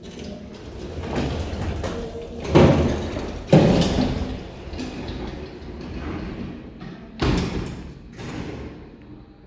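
Sliding doors of a 1989 Schmitt + Sohn elevator working, with two loud thuds close together a few seconds in and another thud about seven seconds in as the doors shut.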